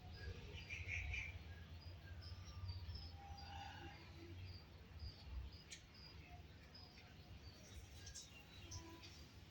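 Pet parrots chirping faintly: many short, scattered high chirps over a low steady hum, with one sharp click about six seconds in.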